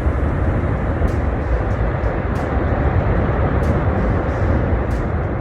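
Loud, steady low rumbling noise with a few faint ticks scattered through it.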